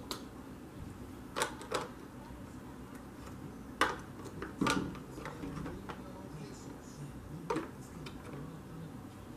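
A few scattered soft taps and clicks from a makeup brush and blush palette being handled, over a steady low room hum.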